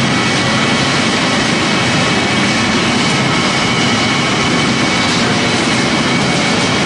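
Pellet mill pressing corn stalk and sawdust, running steadily: a loud, even mechanical noise with faint steady whining tones in it.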